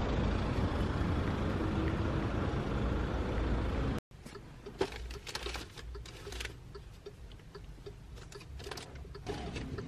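Steady outdoor street noise with a low traffic rumble. About four seconds in it cuts to a much quieter car interior, where a clear plastic carrier bag rustles and a seat belt is drawn across it with light clicks and scrapes.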